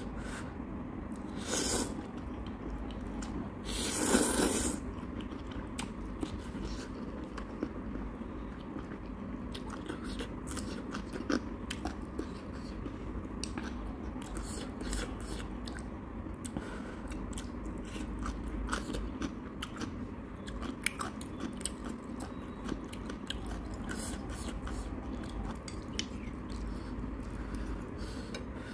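Close-up mukbang eating sounds: chewing of instant ramen noodles with wet mouth noises and small clicks scattered throughout, over a steady low hum. A loud noodle slurp comes about four seconds in, with a shorter one a little before the two-second mark.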